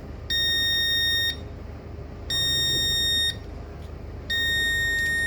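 Buzzer of a Demco fire alarm control panel sounding a steady high beep, about one second on and one second off, three times. It is the panel's fault warning, which the technicians read as a missing backup battery that the panel does not detect.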